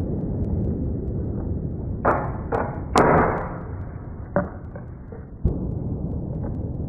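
Browning Citori 725 12-gauge over-and-under shotgun being reloaded, its action broken open and shells handled in the chambers: a handful of sharp clacks, the loudest about three seconds in, over a steady low background noise.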